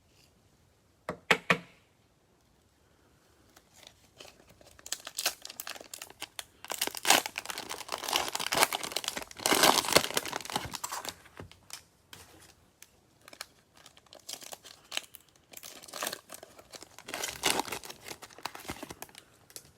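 Crinkling and tearing of a cellophane-wrapped trading card pack being ripped open and handled. A short rustle comes about a second in, then long stretches of dense crinkling follow.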